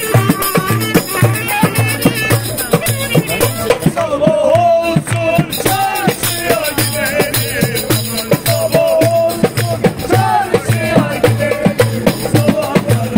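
Live Turkish Romani street music: clarinets playing a wavering, ornamented melody over a steady darbuka beat and jingling tambourine.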